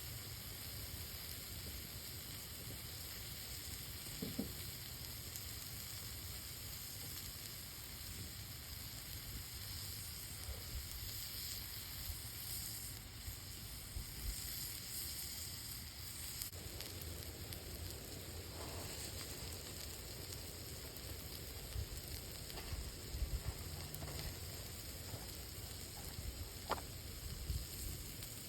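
Hamburger sizzling in a frying pan over a campfire: a steady hiss with a few faint knocks.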